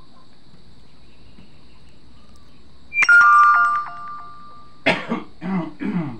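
A single bright, bell-like metallic ring strikes about three seconds in and fades over about a second. Near the end comes a man's voice in three short, loud bursts.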